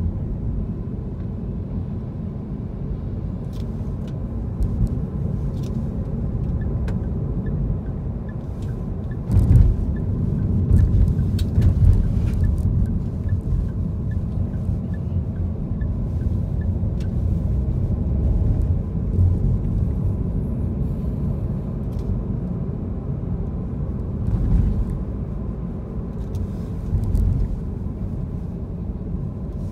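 Car driving in town, heard from inside the cabin: a steady low rumble of engine and road noise, with a few louder low thumps, the biggest about nine and a half seconds in. Through the middle stretch a turn-signal indicator ticks regularly for about ten seconds while the car turns at an intersection.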